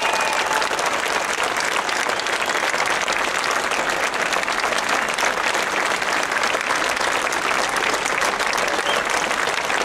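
Large crowd applauding steadily, many hands clapping at once without a break.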